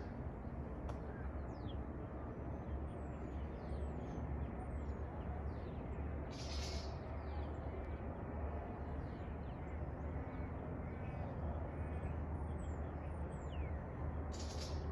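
Birds chirping and calling, with many short high chirps and a few harsher calls, over a steady low wind rumble on the microphone.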